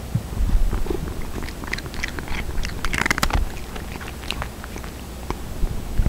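Cat chewing and crunching dry cat food right beside a microphone, picked up and boosted by a home-built LM324 op-amp microphone amplifier. The chewing comes as a run of irregular crunchy clicks over a steady low hum.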